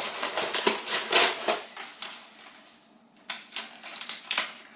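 A package of car parts being opened and handled: a quick run of crackly rustles and knocks, then a quieter moment and a few sharp clicks and taps near the end.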